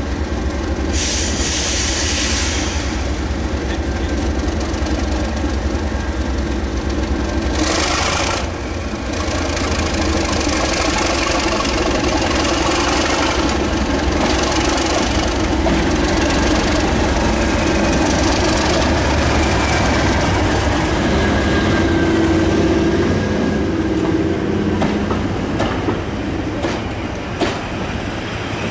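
A Class 37 diesel locomotive's English Electric V12 engine running under power as it pulls away with a train of coaches and passes close by. There are two short bursts of hiss, about a second in and again about eight seconds in, and the wheels clatter as the coaches go by near the end.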